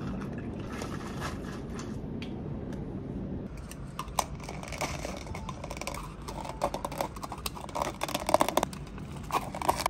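A steady low room rumble, then from about four seconds in a run of light clicks and knocks as ice-filled plastic takeaway cups are picked up, handled and set down on a table.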